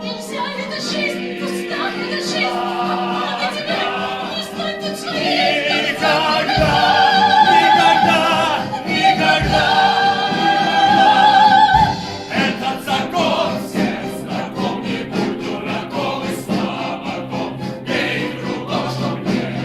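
Choral music: voices singing long held notes with vibrato, swelling louder in the middle and easing off again.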